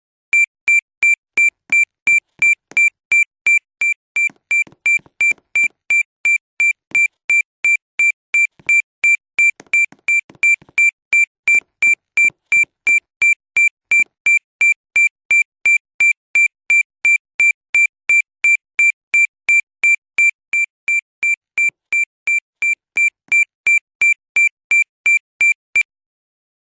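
School fire alarm sounder beeping: one high electronic tone pulsed evenly about twice a second, then cut off suddenly near the end. It is set off by a fault rather than a fire.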